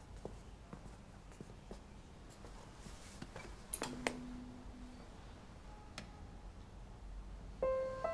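Faint footsteps and light taps in a quiet room, with two sharper clicks about four seconds in and another a couple of seconds later. Background music starts near the end.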